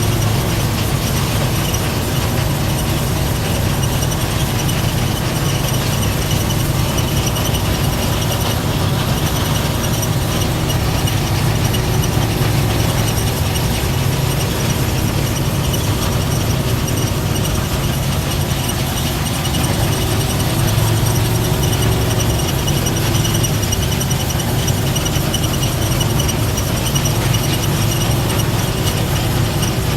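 Harvest machinery running steadily: a constant low engine drone with several steady high-pitched tones over it.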